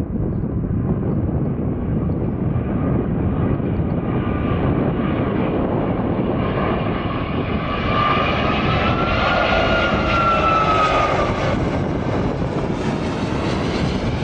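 Airbus A330 jet airliner on landing approach passing low overhead. Engine noise builds to its loudest about two thirds of the way through, with a whining fan tone that rises and then falls in pitch as the aircraft goes over.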